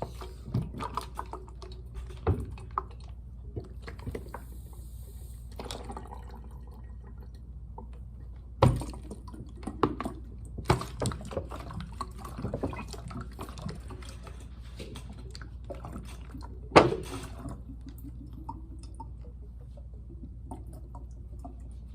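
Water gurgling and dripping through the tube connector between two plastic bottles as the bottles are squeezed, with irregular small splashes and clicks. Two louder sharp knocks of the plastic bottles, one a little before halfway and one about three quarters through.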